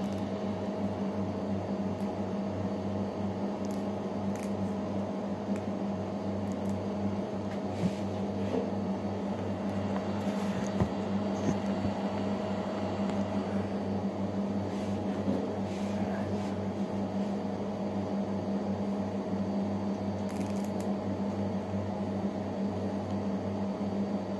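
Steady electrical appliance hum, with a few faint clicks and rustles from hands stripping moringa (malunggay) leaves off their stems.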